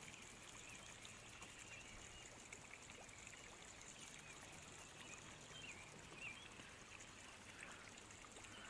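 Near silence: faint outdoor background hiss, with a few faint high chirps in the middle.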